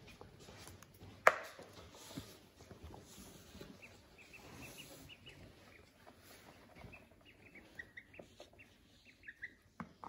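Ducklings and a gosling peeping in short, high, rapid runs. About a second in there is one sharp tap, with a few lighter taps near the end.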